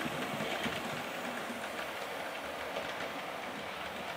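OO gauge model train running past, a locomotive hauling a rake of BR Mk1 coaches: a steady whirr of the electric motor and rolling wheels, with small clicks as the wheels cross the rail joints.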